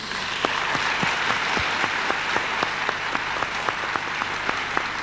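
Audience applauding: dense, steady clapping with a few louder single claps standing out.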